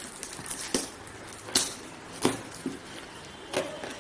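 Cardboard shipping box being opened, its packing tape cut and the flaps handled: about five sharp crackles and taps at irregular intervals.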